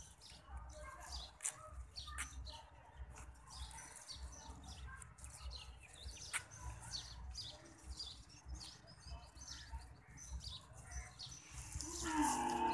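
Small birds chirping repeatedly in short high notes over a low steady rumble. Near the end a louder pitched sound, a call or a voice, begins.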